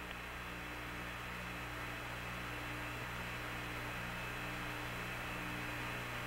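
Steady electrical hum with hiss on the Apollo 11 air-to-ground radio audio channel while no one is talking, with a faint higher tone that breaks off about once a second.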